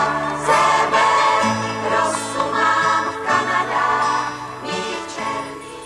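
A song performed by several voices singing together over instrumental accompaniment, in held notes, growing quieter toward the end.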